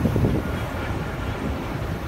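Steady low rumble of a jet airliner passing overhead, the Airbus A330-243F freighter's Rolls-Royce Trent 700 engines, mixed with wind on the microphone.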